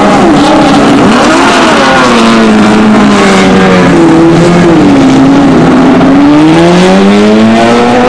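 Several GT race cars accelerating hard together, their overlapping engine notes rising and falling in pitch as they pull away.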